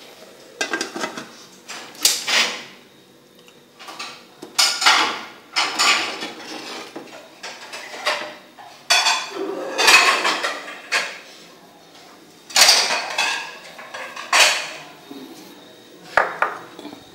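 Crockery and cutlery clinking and scraping in a string of short bursts as a china bowl is handled and food is served onto a plate.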